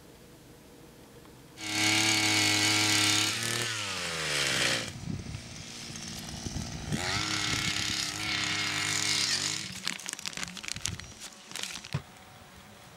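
A small power-tool engine starts suddenly at high speed and runs for a few seconds, then its pitch falls as it winds down. It runs at high speed again for about three seconds. A run of sharp clicks and knocks follows near the end.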